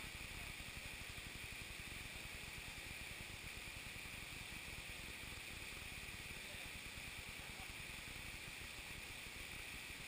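Steady rush of stream water running over rocks into a pool, an even unbroken noise.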